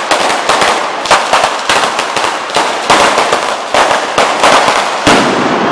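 A traca, a long string of firecrackers laid on the road, going off in a fast, uneven run of loud cracks.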